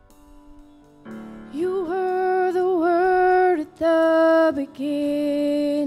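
A woman singing the opening line of a slow worship song solo, long held notes with vibrato, over soft keyboard accompaniment; her voice comes in about a second and a half in.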